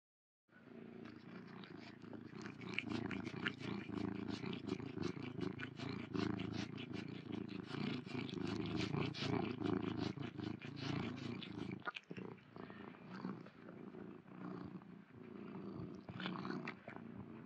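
Domestic cat purring steadily while licking, with a rapid run of short wet clicks from its tongue over the purr. After about twelve seconds the purr grows fainter and the licks come more sparsely.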